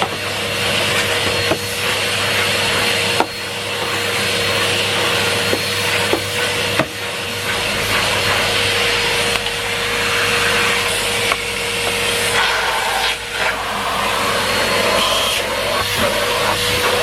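Numatic Henry Pet vacuum cleaner running steadily: a constant motor whine over the rush of suction, with a few sharp clicks and knocks along the way.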